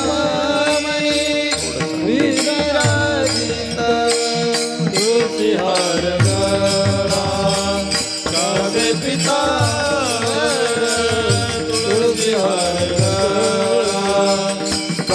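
Marathi Warkari devotional bhajan music continuing between the lead singer's lines: a bending, chant-like melody over low drum strokes every second or so and the steady clink of small hand cymbals.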